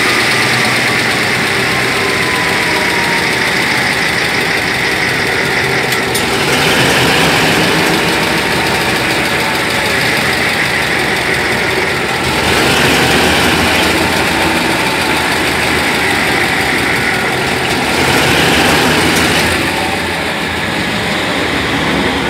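Truck engine running steadily at idle, the sound swelling briefly about every six seconds.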